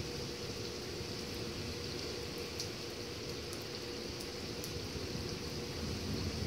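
Steady hiss of rain falling during a thunderstorm, with scattered drops ticking, over a faint steady hum.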